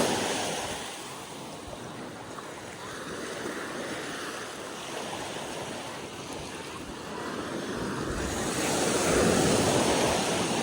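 Ocean surf breaking and washing up the shore. It eases early on, then builds to a loud breaking wave about nine seconds in.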